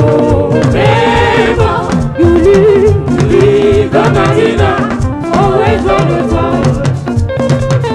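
Live gospel praise music: singers, with a choir or backing vocals, over a full band with drums.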